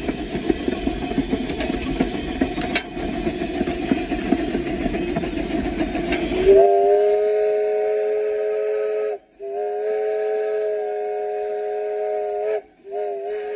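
No. 5 steam locomotive running, a dense rumble and hiss with a few clicks, then about six and a half seconds in its whistle sounds several tones at once as a chord: two long blasts and a third starting near the end.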